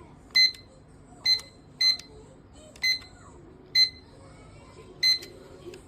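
Digital kitchen timer beeping: six short, high-pitched electronic beeps at uneven intervals, the single key-press beeps of its buttons being pressed to set it.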